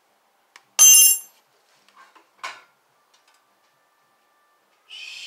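A metal hand tool clinks sharply against the motorcycle's metal parts about a second in, ringing briefly, followed by a few faint clicks and small knocks and a short hiss near the end.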